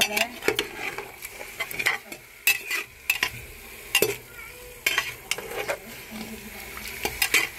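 A slotted metal spoon scraping and clanking against the sides and bottom of a metal pressure cooker as meat, onions and tomatoes are stirred, in sharp strokes at irregular intervals, with the food sizzling in hot oil underneath.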